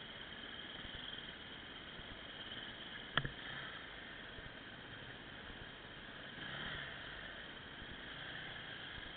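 Faint, muffled steady hiss from a handlebar-mounted camera, with one sharp knock about three seconds in.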